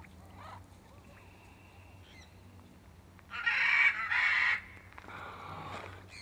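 Young Shamrock macaw giving two harsh squawks back to back, about three and a half seconds in.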